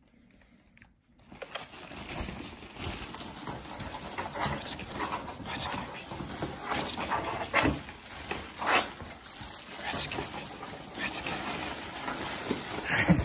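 Plastic mailer bag rustling and crinkling as a Boston terrier noses and tugs at it, with the dog's breathing mixed in; it starts about a second in.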